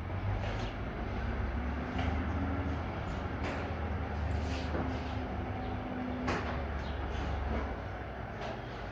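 Semi-trailer truck engine running with a steady low rumble as the truck maneuvers. A steady hum comes in twice, and there are scattered short clicks and hisses.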